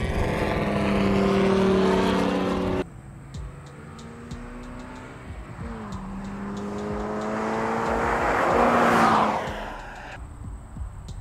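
Toyota GR86's 2.4-litre flat-four engine accelerating hard, its pitch rising, then cutting off abruptly about three seconds in. The engine is then heard again, climbing through a gear change and passing by loudest near the end, its pitch falling as it goes past.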